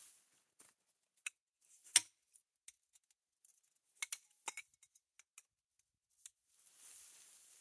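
A scattering of sharp light clicks and ticks from tent gear being handled, the loudest about two seconds in and a quick cluster around the middle. Canvas tent fabric rustles at the start and again near the end.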